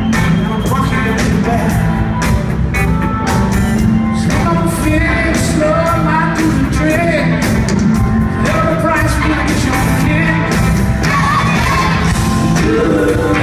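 Live rock band playing Southern rock: electric guitars, bass, drums and keyboards, with a lead voice singing over them, heard from the audience.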